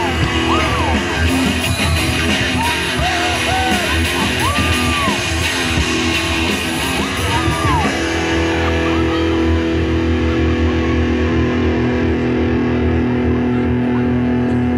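Rock-style music with guitar and a voice singing or calling out in arching, rising-and-falling notes, followed from about eight seconds in by sustained held notes.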